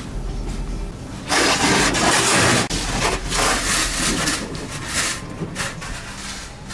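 Car-wash hose spraying water against the car's windscreen, heard from inside the car. There is a loud hissing spray lasting about a second and a half, then more surges and a few short spurts near the end, over a low steady hum.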